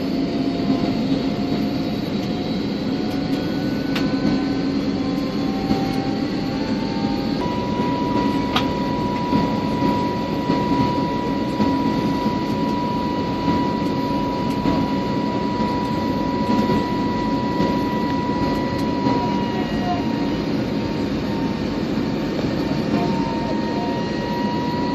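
Steady cabin drone of a jet airliner in flight, with a thin engine whine that climbs slowly in pitch for the first several seconds and then holds steady.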